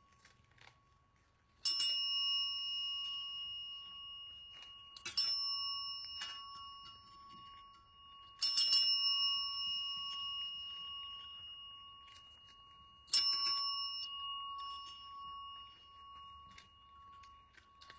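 Chrome desk service bells struck by cats' paws: four bright dings a few seconds apart, each ringing on and slowly fading.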